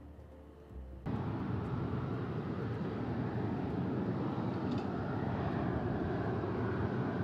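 Jet engines of a Boeing 737-500 (CFM56-3 turbofans) running loud and steady as the airliner rolls past; the sound cuts in suddenly about a second in, after a moment of faint music.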